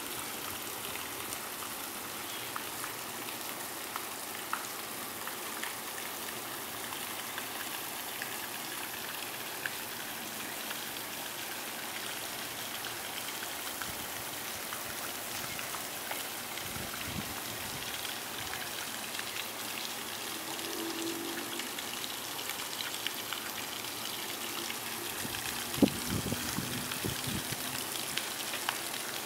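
Steady outdoor background noise, an even hiss with scattered faint ticks, and a brief cluster of soft thumps near the end.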